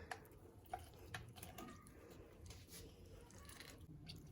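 Faint, irregular soft clicks and squishes of a wire whisk being twisted into a halved orange, pressing out its juice and pulp.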